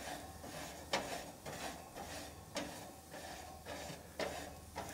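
Grate of a hot gas grill being scraped clean, a series of short scrapes and clicks about twice a second.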